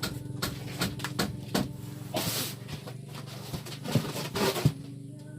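Cardboard carton of a chest freezer being handled and pulled away: scattered knocks, scrapes and short rustles of cardboard, over a steady low hum.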